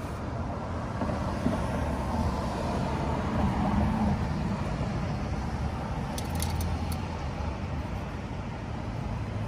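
An SUV driving past on the street, growing louder to a peak about three to four seconds in and then fading, over steady traffic noise. A few light clicks come about six to seven seconds in.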